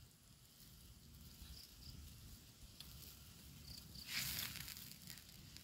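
Faint hiss of golden apple snails simmering in a wok over a wood fire, with small crackles from the fire. About four seconds in, a short louder scraping hiss as a wooden spatula stirs the pan.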